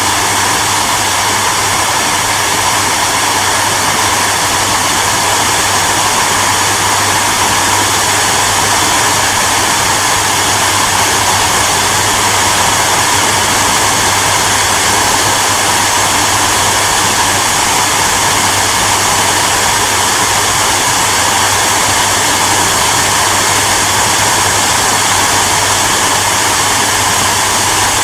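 Hair dryer running continuously: a steady, unchanging rush of blown air with a low motor hum underneath.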